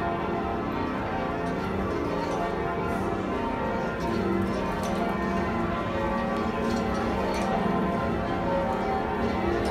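A ring of ten church bells being lowered in peal: the bells strike in quick, overlapping succession as they are rung down together, making a continuous clangour of many tones, heard from the ringing chamber below.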